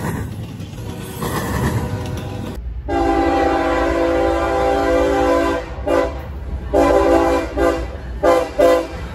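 Double-stack intermodal freight cars rolling past. After a cut, an approaching CSX diesel locomotive sounds its air horn: one long chord-like blast of about three seconds, then several shorter blasts, over the rumble of the engine.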